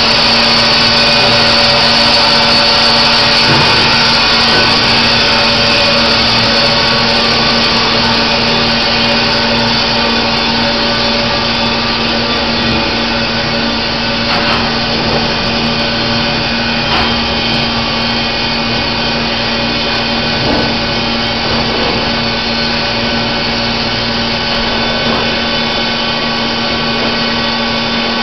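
Baker Products Super Streak band sawmill running, a loud, steady mechanical drone with a constant hum, with a few faint knocks in the second half.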